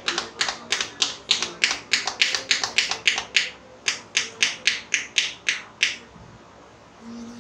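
Hands clapping in a steady rhythm, about three claps a second, with a brief break around three and a half seconds in, stopping about six seconds in.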